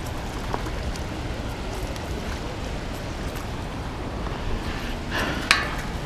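Steady wind noise buffeting the microphone, with a brief noisy burst and a sharp click near the end.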